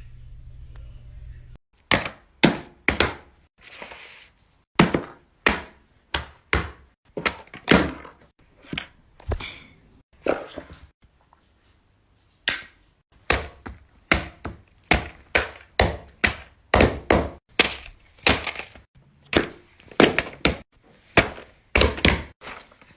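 Fidget toys being pressed and snapped: a long, irregular run of sharp pops and clicks at about two to three a second, pausing briefly about ten seconds in. A low steady hum stops abruptly just before the first pop.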